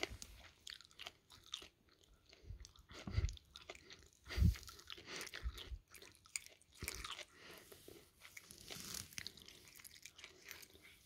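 A cat biting and chewing on a Wiener sausage held close to its mouth: irregular wet smacks and chewing clicks, with two dull thumps about three and four and a half seconds in.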